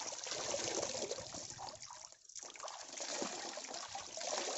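Water trickling and dripping off a wet ginger clump into a tub of muddy water as it is washed by hand, with a brief lull about halfway through.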